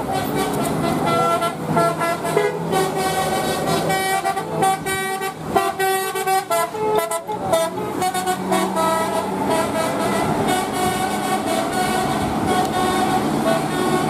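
Bus telolet horns, Basuri multi-tone air horns, playing a quick stepping melody of short and held horn notes again and again over the buses' engine rumble.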